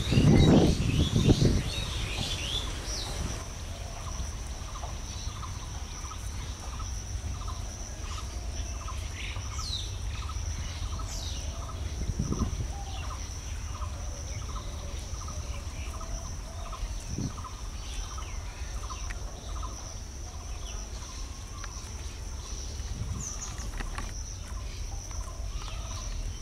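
Birds chirping and calling over a steady low rumble, with a soft regular ticking about one and a half times a second through the first half. A loud low sound opens it, lasting about a second and a half.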